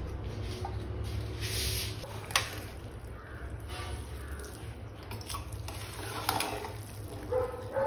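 Ladle stirring freshly pressure-cooked biryani rice in a pressure cooker pot: soft squishing and scraping, with one sharp click of the ladle against the pot a little over two seconds in. A steady low hum runs underneath.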